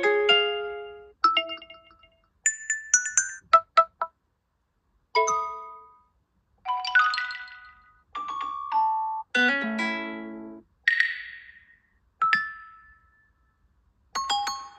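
A run of short Huawei P60 Pro alert chimes, about ten different ones played one after another, each a second or so long with a brief silence between them.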